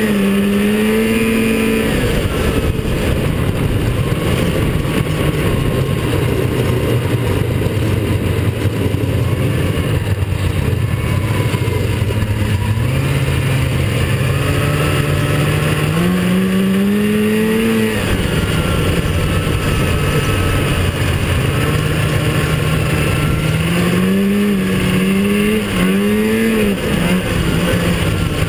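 Arctic Cat 440 Panther snowmobile's two-stroke engine running under way, its pitch rising and falling as the throttle is worked: once near the start, again about two-thirds of the way in, and in a few quick rises near the end. A steady rushing noise runs underneath.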